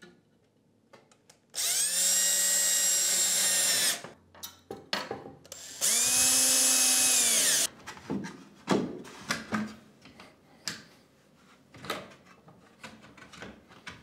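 Cordless drill-driver driving screws into a wooden batten in two runs of about two seconds each, the motor whine rising as it spins up and dropping as it winds down. Afterwards, scattered light knocks and taps of wooden planks being handled and pressed against the wall.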